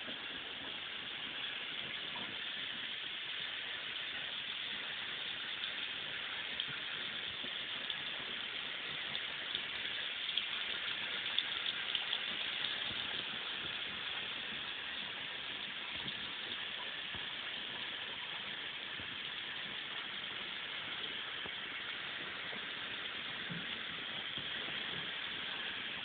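Thin stream of water from a bathroom sink faucet splashing steadily into the porcelain basin, a continuous even hiss.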